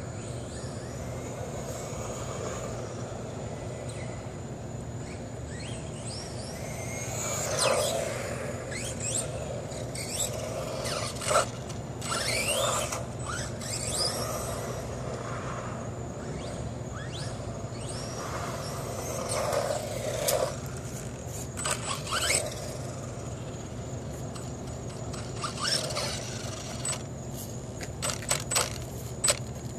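Dromida RC car's brushless motor on a 2S LiPo battery, whining up and down in pitch in repeated bursts as the car accelerates, brakes and turns, with tyre scrapes and clicks on asphalt.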